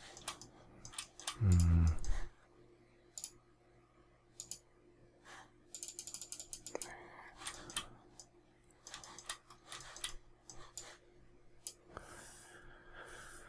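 Computer mouse and keyboard clicking, scattered single clicks with a quick run of scroll-wheel clicks about six seconds in.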